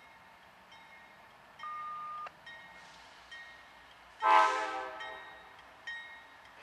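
A CSX freight locomotive's air horn sounds a short, loud blast about four seconds in that fades away, after a brief steady tone about a second and a half in. Under it, a grade-crossing bell dings steadily, a little faster than once a second.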